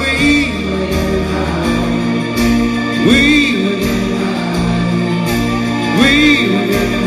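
Live rock band playing, electric guitars over sustained chords, with a swooping lead figure that returns about every three seconds.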